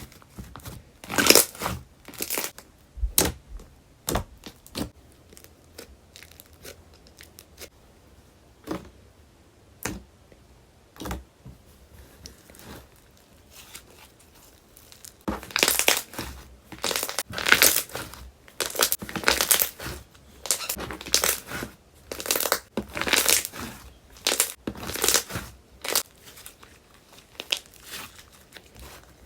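Slime being squeezed and poked by hand, giving short crackling, popping squishes, scattered at first and then coming thick and fast from about halfway.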